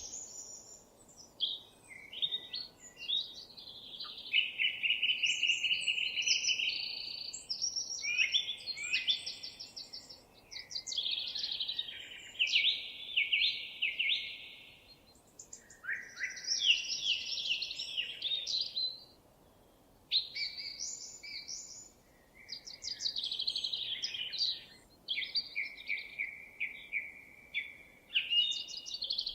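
Songbirds singing, several songs overlapping in a busy chorus of rapid trills and quick chirps, with a brief lull about two-thirds of the way through.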